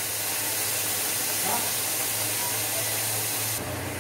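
Chopped tomatoes sizzling in hot ghee in a kadhai: a steady hiss with a low hum underneath.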